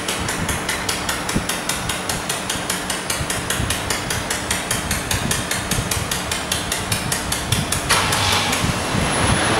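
Robotic laser welding machine ticking rapidly and evenly, about six sharp ticks a second, over a steady low machine hum. A hiss joins about eight seconds in.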